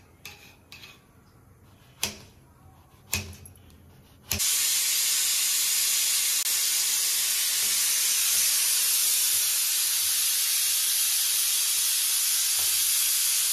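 A knife chops bottle gourd on a stone counter in a few sharp cuts. About four seconds in, a stovetop pressure cooker's whistle goes off: a sudden, loud, steady hiss of steam venting under the weight, the sign that the cooker has come up to pressure.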